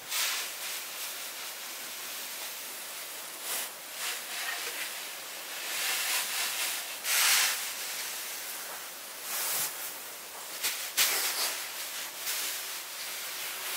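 A shovel scooping and shifting loose wood shavings: repeated dry rustling scrapes and pours, a few louder scoops among them.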